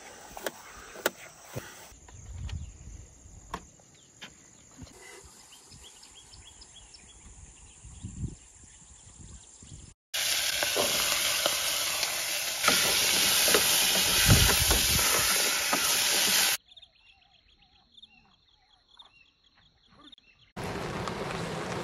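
Kitchen knife chopping bell peppers on a plastic cutting board, a sharp tap with each cut. Then a louder, steady hiss and sizzle from a pot on a portable gas stove for about six seconds. A quiet stretch with faint chirps follows, and a steady rain-like hiss starts near the end.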